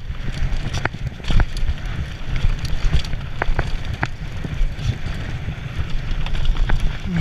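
Mountain bike riding down a dry dirt trail: steady rumble of wind buffeting and trail vibration on the bike-mounted camera's microphone, tyre noise on the dirt, and scattered sharp rattles and clicks from the bike over the bumps.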